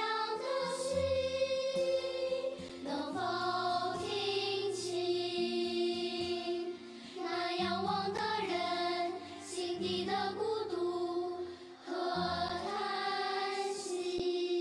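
Children's choir singing a slow song over instrumental accompaniment. The long held notes come in phrases, with short breaks about every four seconds.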